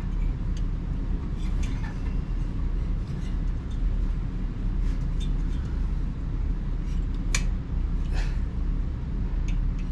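Scattered light metallic clicks and taps of tools and parts being handled on a motorcycle engine, the sharpest about seven and a half seconds in, over a steady low rumble.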